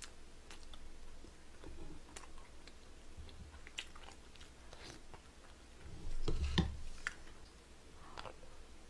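Close-miked eating sounds of someone chewing spoonfuls of braised chicken stew: wet chewing with small mouth clicks, and a louder spell of mouth noise about six seconds in.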